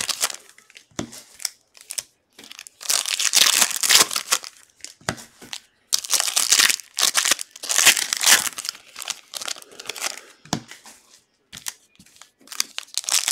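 Plastic and foil trading card pack wrappers being torn open and crinkled by hand, in a string of rustling bursts about a second long with short pauses between them.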